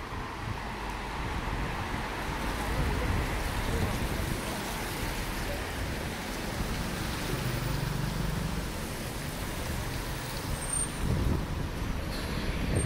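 Road traffic passing on a rain-wet street: a steady rumble of vehicles going by.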